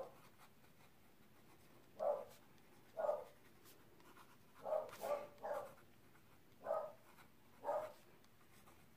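Extra-fine nib of a Pilot fountain pen scratching faintly across an index card as words are written, the nib laying down ink without skipping. Seven short, soft voice-like sounds are spaced through the writing and are the loudest thing heard.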